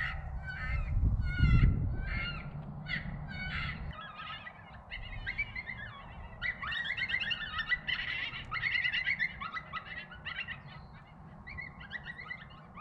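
Electronic predator call playing animal distress cries to lure coyotes: short, repeated high cries, each bending in pitch, about two a second, becoming a denser, overlapping chatter from about five seconds in.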